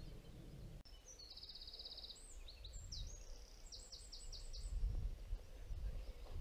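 A small songbird sings one short, high-pitched song starting about a second in: a fast trill, a few quick notes, then a run of about five rapid notes near the end of the song. Low rumbling noise runs underneath.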